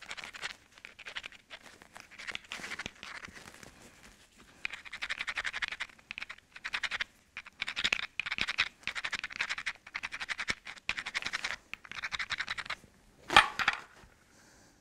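Rapid scraping strokes of an abrader rubbed back and forth along the edge of a Swan River chert core, in bouts, grinding the striking platform so it will not collapse under the billet. A single sharp knock near the end.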